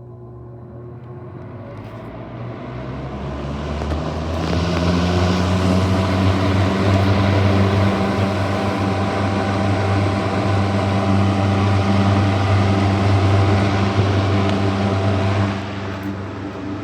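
Super Electric 14-inch box fan (model 1475) coming up to speed on high, its hum and rush of air building over the first four seconds or so, then running steadily with a strong low hum. The level drops somewhat near the end.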